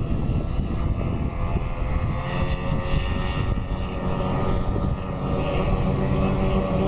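Racing powerboat engines running at high revs across the water: a steady droning whine of several pitches at once.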